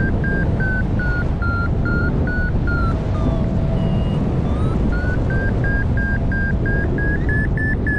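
Audio variometer beeping in quick short chirps, about three a second, the pitch sagging around the middle and rising again toward the end: the climb tone that signals rising air. Steady wind rush on the wing-mounted camera's microphone underneath.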